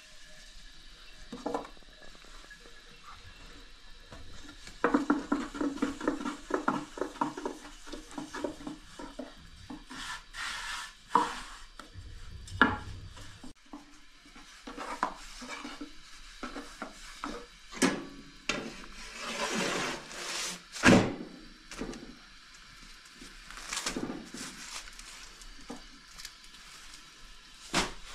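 Long thin wooden rolling pin rolling and knocking on a round wooden board as thin flatbread dough is rolled out. A rapid run of clattering taps about five seconds in, then scattered knocks and rubbing swishes of the dough sheet.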